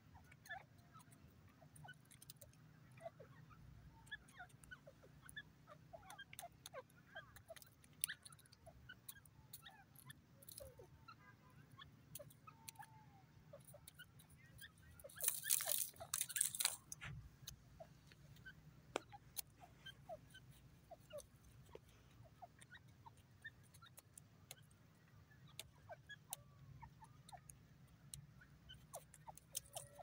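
Faint outdoor field ambience: scattered faint chirps and ticks over a low steady rumble, with a brief loud noisy burst, like handling or rustling, about fifteen seconds in that lasts a second and a half.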